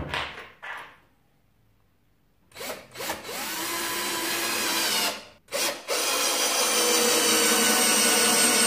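Parkside PBSA 20-LI A1 cordless drill driving a screw into wood. A few clicks come first, then short trigger blips, and the motor runs for about two seconds. It stops briefly, blips once more, and from about six seconds in runs steadily again.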